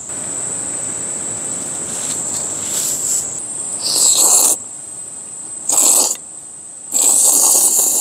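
A person slurping noodles from a mess tin in three loud slurps, about four seconds in, about six seconds in and near the end, the last the longest. Before them there is a steady rushing noise for about three seconds, and an insect drones on one steady high note throughout.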